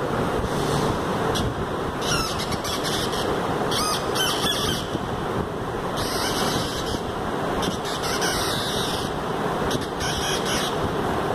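Electronic tones from a small loudspeaker driven by a microcontroller circuit, played by closing the circuit through pencil-graphite drawings with a clip lead: a harsh steady buzz with squealing tones that come and go several times as the contact changes on the drawing.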